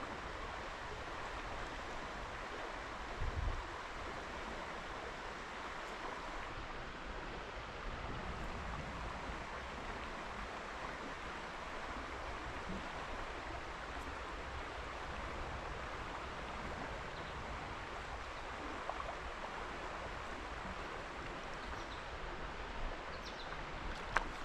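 Steady rush of flowing river water, with one brief low thump about three seconds in.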